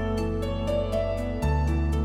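Background music: soft new-age instrumental with held keyboard notes over a steady ticking beat, the bass shifting to a new note about a second and a half in.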